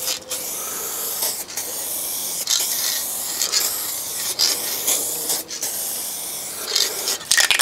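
Aerosol spray-paint can hissing in steady passes, cut by brief breaks about once a second between strokes. The can is nearly used up.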